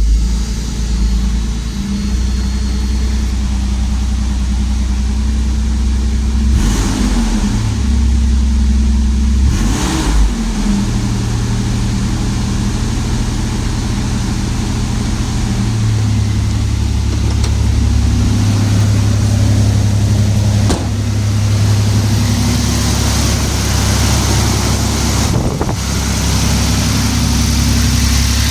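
1994 Toyota T100 pickup engine running, its speed rising and falling a few times, then idling, just after a new distributor cap, rotor and plug wires were fitted to cure a misfire.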